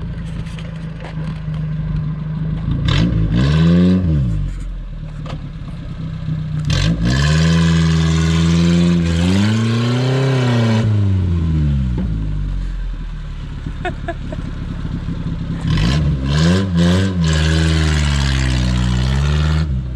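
Suzuki Samurai's engine revving hard under load in three pushes, pitch climbing and falling each time, the longest lasting about four seconds in the middle, with sharp knocks and scraping from the vehicle in between.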